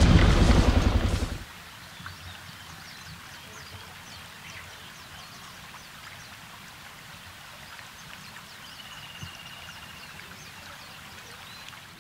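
Trail motorcycle engines running for about the first second, then cut off suddenly. After that comes quiet outdoor ambience with many short, high bird chirps and one held whistled bird note near the end.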